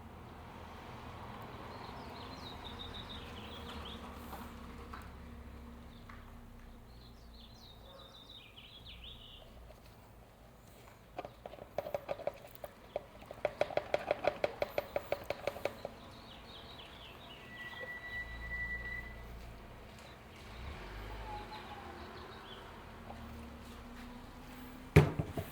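Outdoor ambience with birds chirping, including a rapid rattling chatter of about ten notes a second for several seconds in the middle, and a short steady whistle later. A single sharp knock near the end.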